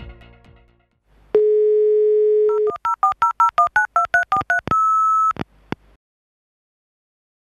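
Telephone dial tone, then a quick run of about a dozen touch-tone keypad beeps as a number is dialled, ending in one short higher beep.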